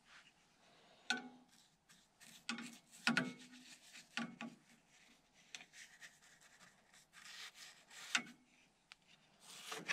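An acid brush scrubbing sealer onto the bare wood of a model airplane's engine box. It makes irregular rubbing strokes, with a few sharper knocks and scrapes, about a second in, around three seconds and around eight seconds.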